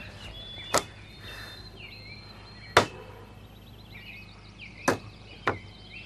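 Four sharp clicks or knocks, a second or two apart, over faint high chirping in the background.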